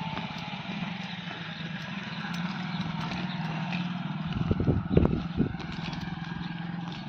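An engine running steadily with a low, even hum, with a few loud low thumps about four and a half to five and a half seconds in.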